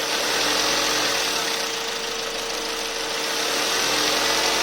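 Mazda 2.0 L LF four-cylinder engine running on engine-flush oil, given two light blips of the throttle, its sound swelling a little about a second in and again near the end. The owner judges it sounds quite fine.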